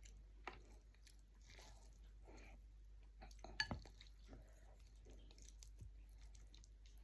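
Faint mouth sounds of a person chewing food, with soft wet smacks and small clicks and one sharper click about three and a half seconds in.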